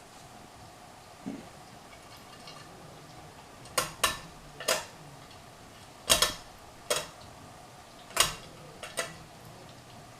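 Hunter Stratford II ceiling fan's pull-chain switch clicking as the chain is pulled again and again, about eight sharp clicks at uneven intervals, some in quick pairs. The pull-chain switch is very bad and takes several pulls to land on the wanted speed.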